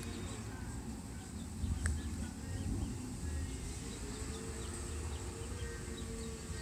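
Outdoor residential-street ambience picked up by a phone microphone: a low rumble like wind on the mic, a steady faint hum in the distance, and scattered short bird chirps.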